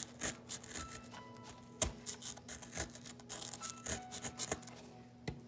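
Fingers crumbling and scraping a soft, powdery digging block: an irregular run of small gritty crackles and scratches, with a sharper crack about two seconds in and another near the end. Faint background music with short held notes sits underneath.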